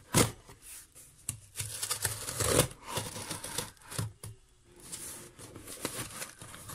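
Scissors slitting the packing tape along the seam of a cardboard shipping box: irregular scraping and crackling of blade on tape and cardboard, with scattered sharp clicks.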